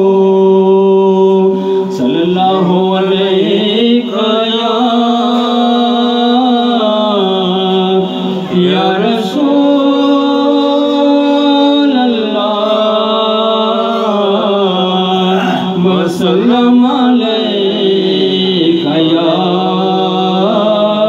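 A man singing a Punjabi naat into a microphone, drawing out long, slowly wavering held notes with few clear words, his voice amplified.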